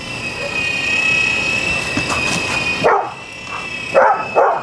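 A golden retriever barking at a hovering toy RC helicopter: three sharp barks in the last second and a half. The helicopter's small electric rotor motor gives a steady high-pitched whine underneath.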